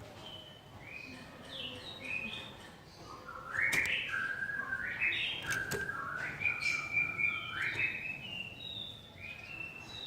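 A cililin songbird singing clear whistled phrases of short notes that step up and down in pitch, louder from about three and a half seconds in. Two sharp clicks sound in the middle.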